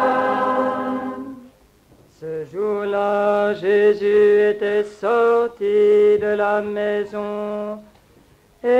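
Unaccompanied liturgical chant. A held sung note fades out about a second in, then after a short pause a voice chants in short phrases, mostly on one steady reciting pitch with small steps up and down.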